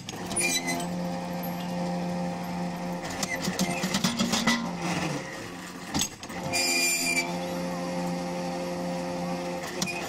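Electric winch motor of a small tripod drop-hammer pile driver running with a steady hum, its pitch sagging around five seconds in. A knock about six seconds in, followed by a short high metallic ring, then the winch hums steadily again.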